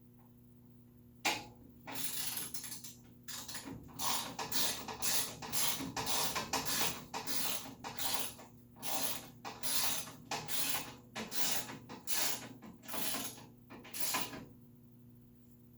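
Ratchet wrench clicking in repeated short strokes as bolts are tightened, starting about a second in and stopping near the end.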